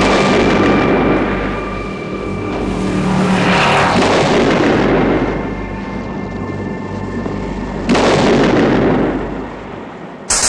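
A bomb blows up a motor boat in a chain of heavy explosions. A blast already under way swells again about three seconds in, and a third sharp blast hits near eight seconds, then dies away.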